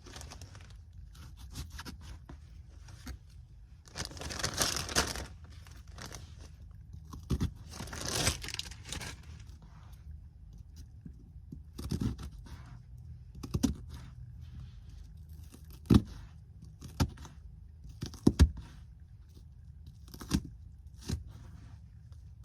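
Red onion being prepared by hand: papery rustling and crinkling twice, then sharp knocks of a knife on a cutting board, about seven spread over the second half. A steady low hum runs underneath.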